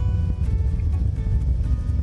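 Steady low rumble inside a jet transport aircraft's cockpit during the takeoff roll, with background music over it.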